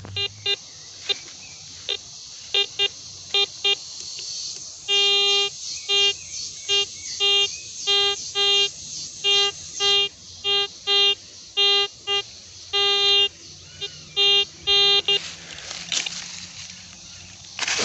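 Metal detector giving short beeps at one steady pitch as its coil is swept over leaf litter, signalling buried metal targets. The beeps come in irregular runs, a few held longer, and stop about three seconds before the end, followed by a rustle in the dry leaves.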